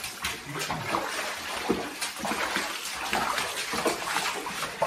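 Boots sloshing and splashing through shallow water on a flooded mine floor, an irregular run of wet steps.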